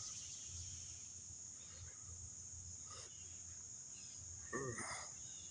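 Steady high-pitched insect chorus in woodland, faint. About four and a half seconds in comes a short vocal sound from a person.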